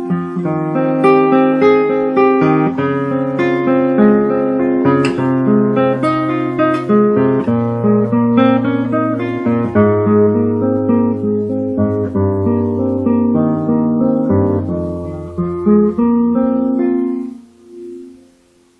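Classical guitar played fingerstyle: a flowing stream of plucked notes over a bass line that steps downward. Near the end the phrase closes and the notes ring out and die away.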